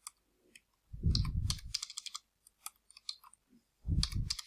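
Computer keyboard typing: a run of quick key clicks as rows of numbers are entered. Two brief low hums come about a second in and near the end, louder than the clicks.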